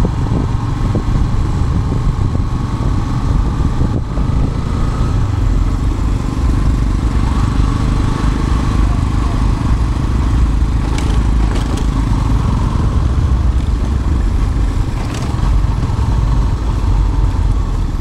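Motorcycle riding along a road: its engine runs under a steady low rumble of wind on the microphone.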